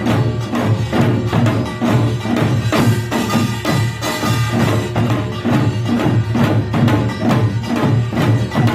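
Korean pungmul percussion band playing: small gongs and drums struck together in a fast, even rhythm, the gongs ringing over the drumbeats.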